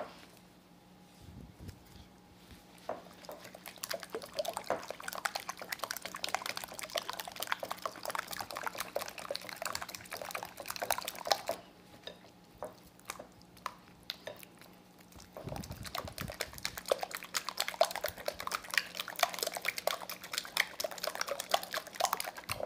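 Silicone spatula beating a wet batter of eggs, honey and softened butter in a glass bowl: fast, wet squishing and scraping strokes that stop for a few seconds about halfway, then start again.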